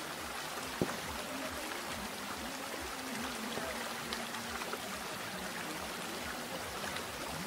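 Steady hiss of trickling, flowing water, with one sharp click about a second in.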